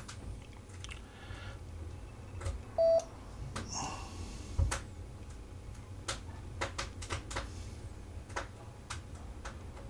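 A Yaesu FTM-350 transceiver gives one short beep about three seconds in, over a low steady hum and scattered light clicks.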